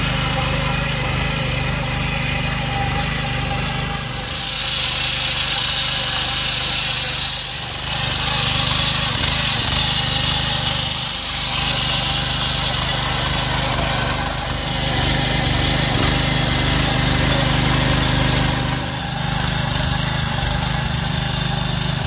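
Small petrol engine of a power weeder running steadily under load as its tines churn dry soil, a constant drone with a brighter hiss that swells and fades every few seconds.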